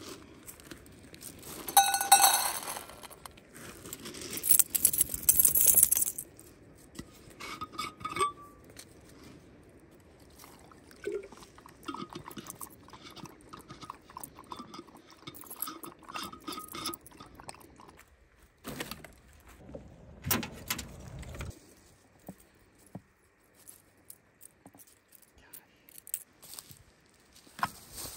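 A metal camp bowl clinks and rings as it is set down and handled. Later a dog laps water from a bowl, a quick run of light, repeated laps.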